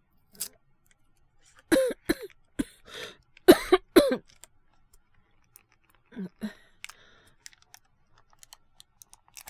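A man coughing in a fit, several hard coughs in quick succession about two to four seconds in, then two weaker coughs a couple of seconds later: an acted sick cough of someone down with a cold and fever.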